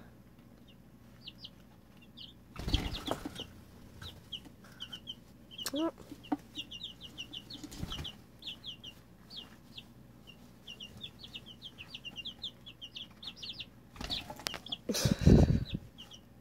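Two-week-old chicks (pullets) peeping: many short, high cheeps in quick succession. A louder rustling knock comes about three seconds in, and a louder, longer one near the end.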